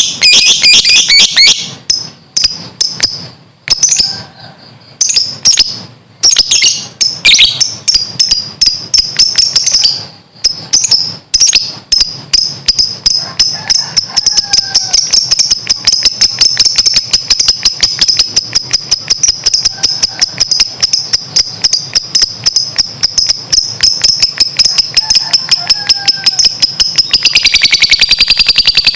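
Lovebird giving its long 'ngekek' chatter: a fast run of shrill, high repeated notes, many a second. It comes in broken spurts for the first dozen seconds, then runs on unbroken, dipping in pitch near the end.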